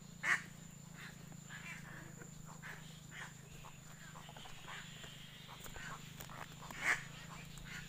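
Faint outdoor ambience with a steady high insect-like tone and scattered short clicks and rustles of branches. There is one louder click just after the start and another near the end.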